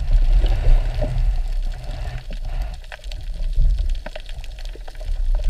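Water moving past an underwater camera housing: a muffled low rumble with sloshing. Scattered short clicks come in from about two seconds in.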